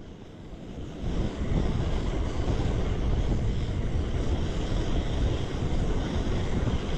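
Canister gas stove burning under a pot: a steady hiss that grows louder about a second in, with wind rumbling on the microphone underneath.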